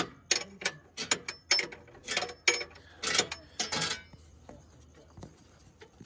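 Quick metallic clicking and clinking, about three to four strokes a second, of a spanner and hand working the bolt of a truck's underslung spare-wheel carrier. It stops about four seconds in, leaving only a few faint clicks.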